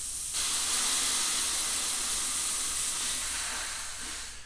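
Pressurised air hissing out of a pump-up weed sprayer rigged as an engine oil primer. The tank is being emptied of its roughly 30 PSI charge, and the hiss fades away as the pressure drops near the end.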